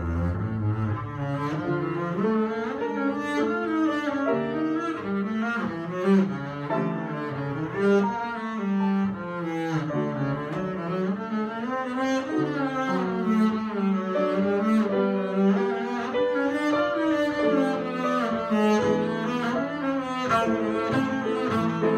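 Double bass played with the bow: a single melodic line of quick runs that climb and fall.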